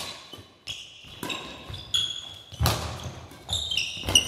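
Doubles badminton rally: several sharp racket strikes on the shuttlecock, about a second or more apart, the loudest near the middle and near the end, with short high squeaks of shoes on the sports-hall floor between them.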